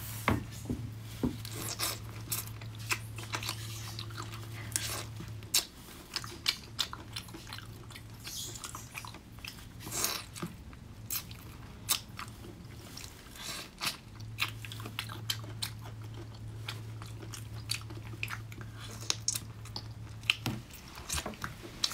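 Close-up eating of large prawns: irregular crunchy bites and chewing clicks. A low steady hum runs through the first five seconds and comes in again from about two-thirds of the way through until near the end.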